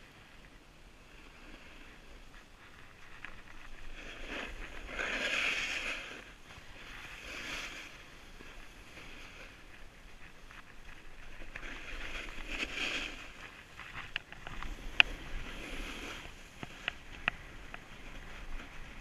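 Edges scraping and hissing across groomed snow in a series of turns, each turn a swelling rush, with wind on the microphone. A few sharp clicks come near the end.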